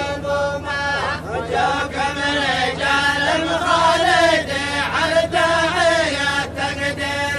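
A group of men chanting a traditional Faifi tarh together in long, held, wavering lines, over a steady low hum.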